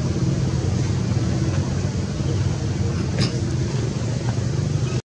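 A steady low rumble, with a brief faint high squeak about three seconds in.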